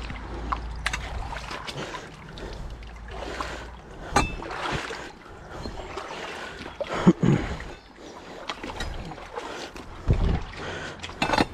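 Footsteps crunching and rustling through brush and loose debris, with irregular snaps and knocks, the loudest around the middle and near the end.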